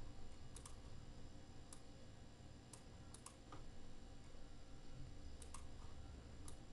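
Faint computer mouse clicks, scattered a second or so apart and several in quick pairs, over a low steady room hum.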